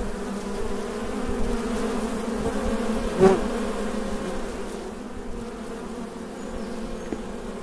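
Honeybees buzzing in a dense cluster at a wooden hive's entrance, a steady hum of many wings. One buzz swells louder for a moment about three seconds in.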